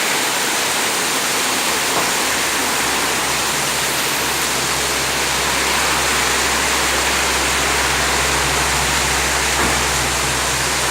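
Heavy storm rain pouring down in a steady, loud hiss. A low rumble joins about four seconds in and holds.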